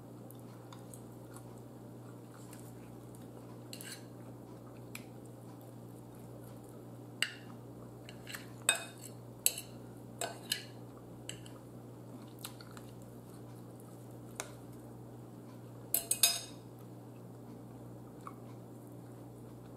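A fork and spoon clinking and scraping against a bowl in scattered sharp clicks, most of them in the second half, the loudest pair about sixteen seconds in.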